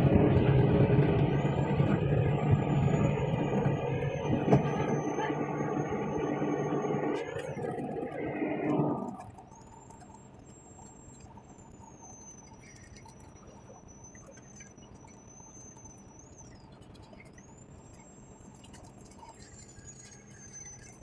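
Excavator's diesel engine running close by, then cutting off sharply about nine seconds in and leaving only faint background noise. A thin, high-pitched squeal wavers on and off throughout.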